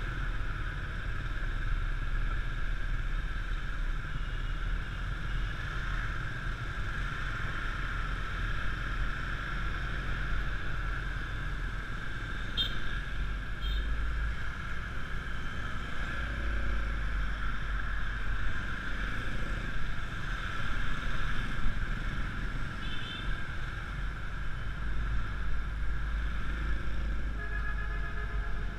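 Scooter riding through city motorbike traffic: the Yamaha Mio Classico's small single-cylinder four-stroke engine runs steadily under road noise, with low wind rumble on the bike-mounted microphone. Short horn beeps from other motorbikes sound twice in quick succession a little under halfway through, and once more later.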